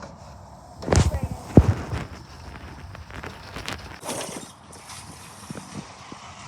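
Knocks and thuds from scrubbing out the bottom of a drained pond with a towel: two loud knocks about a second in and half a second later, then scattered lighter clicks and rubbing.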